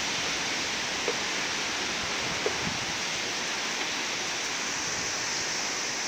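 Strong wind blowing steadily, an even rushing noise with no gusts standing out.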